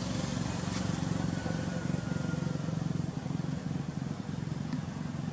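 A steady low engine drone runs throughout, with a few faint clicks over it.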